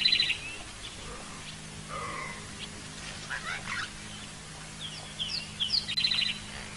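Wild birds calling in bushveld. Twice, at the start and again near the end, a phrase of several short falling whistled notes ends in a fast, rattling trill, with scattered single calls in between, all over a faint steady low hum.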